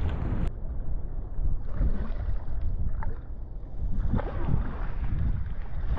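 Wind buffeting the microphone over water sloshing in a wide estuary. About four seconds in, a cast net is swung out and lands on the water with a spattering splash.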